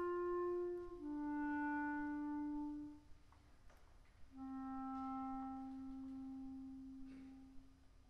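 Solo clarinet playing three long held notes, each lower than the one before, with a short pause about three seconds in; the last note fades away near the end.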